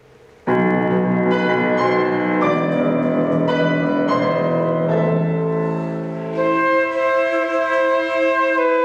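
Instrumental duet music starting about half a second in: held chords under a moving melody, the notes sustained without dying away.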